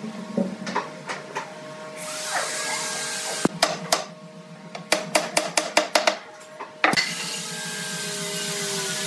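Wooden rails being fitted onto a wooden table frame: light wooden knocks, then a quick run of sharp knocks in the middle, about five a second. A steady hiss sets in about two seconds in, breaks off while the knocks start, and returns about seven seconds in.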